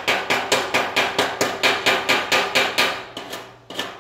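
Hammer striking the steel of a freshly welded trailer fender in a fast, even rhythm of about four to five blows a second, thinning out and stopping near the end.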